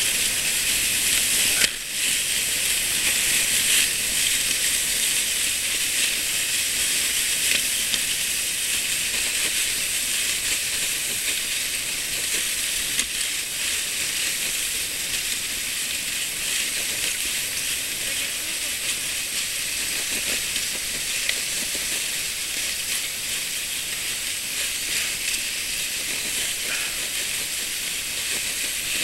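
Sled sliding down a packed-snow slope: a steady, high hiss of the sled on the snow, with a brief dip about two seconds in.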